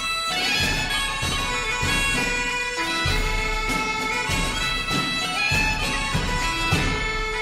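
Intro theme music: a melody of long held notes, tagged as bagpipe-like, over regular drum beats.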